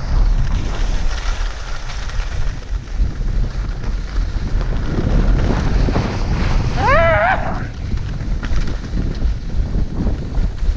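Wind buffeting an action camera's microphone while skiing downhill, a steady rumble with a hiss of skis running over snow. A brief short vocal call cuts through about seven seconds in.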